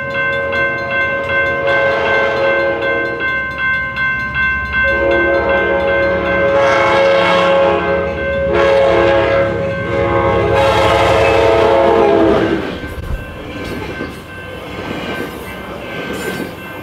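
Union Pacific Big Boy 4014 steam locomotive's chime whistle blowing one long blast, its chord deepening about five seconds in. The whistle cuts off after about twelve seconds, leaving the train rumbling along the rails.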